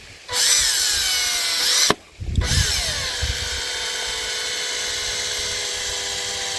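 Power drill driving screws straight into wood, without pilot holes. It makes a short run of about a second and a half, stops briefly, then makes a longer steady run whose pitch sinks slightly as the screw bites.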